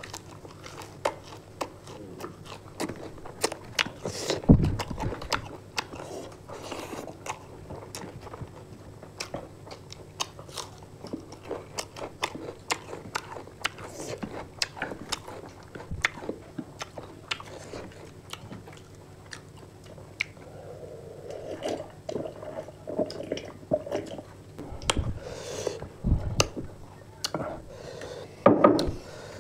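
Close-miked eating: chewing and biting into spicy fried chicken, with crunching and wet mouth clicks scattered throughout. A few low thumps, one about four seconds in and two more near the end.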